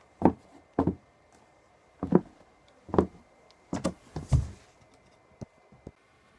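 Footsteps in Nike Foamposite sneakers: about six irregular thuds over four and a half seconds, then two faint taps.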